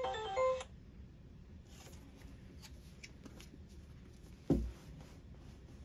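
Library self-checkout barcode scanner giving a short electronic beep tune as the library card's barcode is read. About four and a half seconds in, there is a single dull thump.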